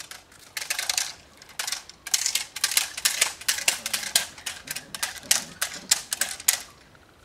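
Training stick clattering in rapid, irregular sharp clacks as it is shaken and waved over a Malinois puppy that is tugging on a rag.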